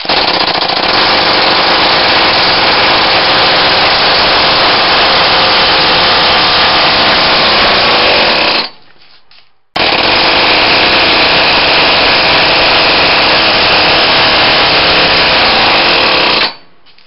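Weed-eater-size two-stroke engine with a cylinder cast entirely from JB Weld epoxy, running with a loud, rapid buzz for about eight and a half seconds before it cuts out. It runs again for about seven seconds and cuts out again.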